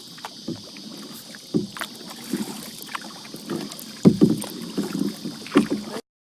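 Kayak paddling: the paddle splashing in the water, with several sharp knocks, the loudest about four seconds in. The sound cuts off suddenly near the end.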